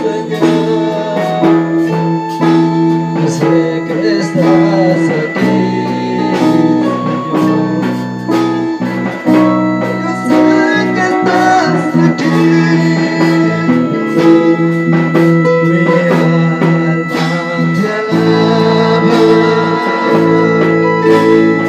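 Live church worship band music: held keyboard chords that change every few seconds over a drum kit keeping a steady beat.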